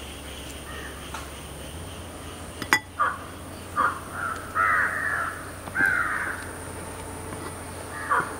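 Crows cawing, several short calls in a run through the middle, with one sharp click just before the calls begin.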